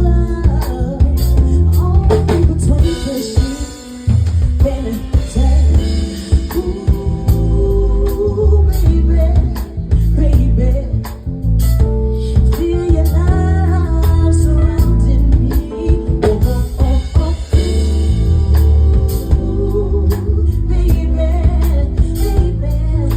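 Live R&B/soul band music: a slow song with a singing voice over drum kit, guitar and a heavy bass line.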